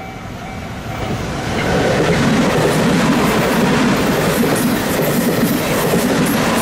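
Level crossing bell dinging about twice a second, swamped about a second in as an electric train comes through. The train's wheels then clatter rhythmically over the rail joints, loud and steady.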